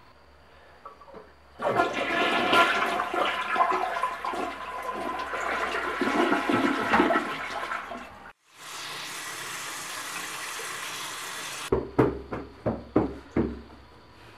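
Toilet flushing: a loud rush of water for about six seconds that cuts off abruptly, followed by a steadier, quieter hiss of water. Near the end comes a quick run of sharp knocks.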